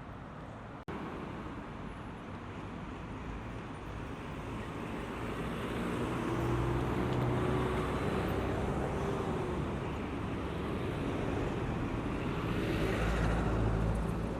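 Road traffic passing: a steady noise of vehicle engines and tyres that swells twice, once around the middle and again near the end.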